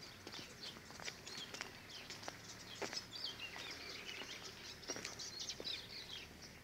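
Small birds chirping and twittering, several short calls overlapping throughout, faint, with a few scattered sharp clicks.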